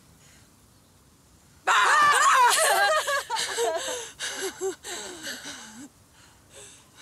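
A woman's sudden loud yell about two seconds in, a shout meant to scare away hiccups, breaking into laughter that comes in short bursts and fades out.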